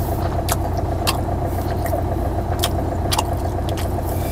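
Car engine idling steadily, heard from inside the cabin, with a few short light clicks over it.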